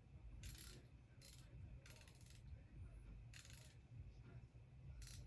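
Near silence with about five faint, brief, hissy scrapes spread through it: small handling noises.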